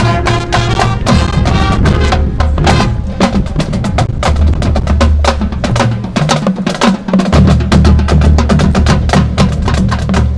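High school marching band playing a loud, percussion-heavy passage: rapid drum strokes over sustained wind notes and deep low notes, the low notes dropping out briefly a little past the middle.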